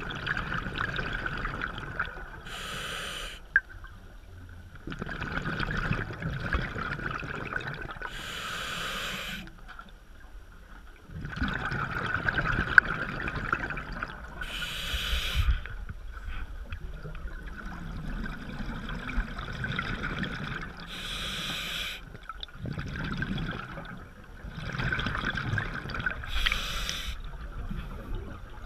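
Scuba diver breathing through a regulator underwater: a hissing inhale lasting a few seconds, then a short rush of exhaled bubbles, about every six seconds, five breaths in all.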